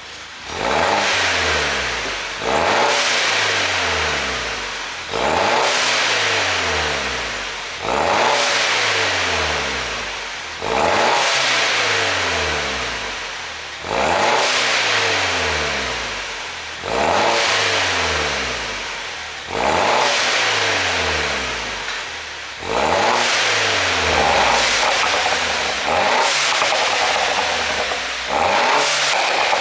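2010 Mini Cooper S (R56) turbocharged 1.6-litre four-cylinder revved about eleven times, one every two and a half to three seconds: each rev jumps up sharply, then falls back toward idle. Exhaust pops on the overrun, tuned in by a remapped ECU.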